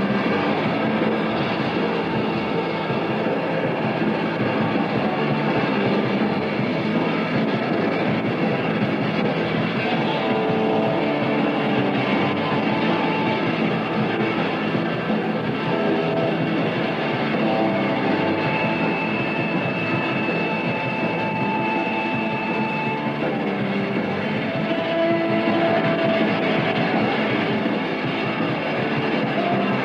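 Rock music with electric guitar: a dense, steady band sound, with long held lead-guitar notes from about halfway through.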